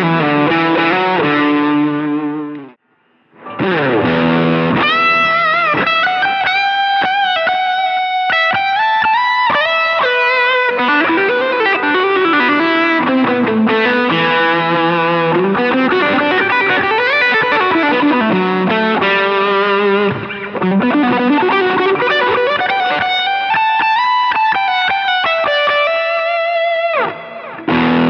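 Sterling Majesty X electric guitar on its bridge pickup, played through a high-gain distorted tone with a boost. A held chord rings and stops about three seconds in, then comes a long single-note lead with string bends and vibrato.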